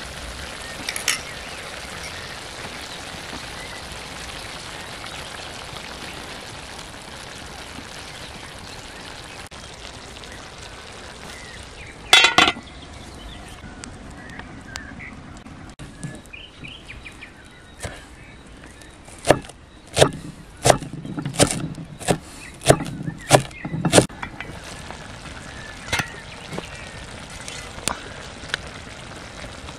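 Food sizzling in an iron pan over a wood fire, with a single loud metal clank about twelve seconds in that fits a lid going onto the pan. Later comes a quick run of about a dozen sharp knocks that fit a knife chopping fresh herbs on a wooden board.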